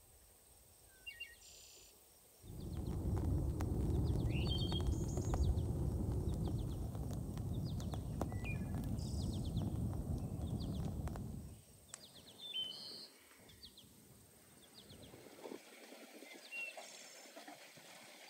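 Wood fire burning close up, a dense crackling rush that cuts in about two seconds in and stops abruptly near twelve seconds. Small birds chirp throughout.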